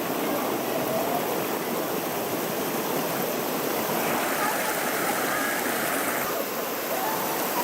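Mountain stream water flowing, a steady hiss of running water.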